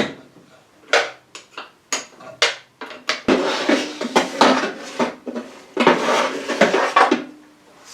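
Metal parts and hand tools clinking and clattering: a few separate clicks and knocks, then from about three seconds in a longer run of rattling and scraping.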